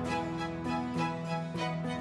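Background music: a melody of plucked and sustained pitched notes with a regular pulse.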